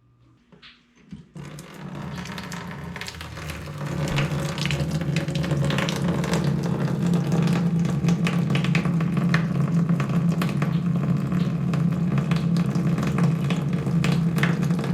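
Water running hard from an opened faucet, draining the house's copper supply pipes after the main water valve has been shut off. The rush starts about a second in, grows louder a few seconds later, and then holds steady.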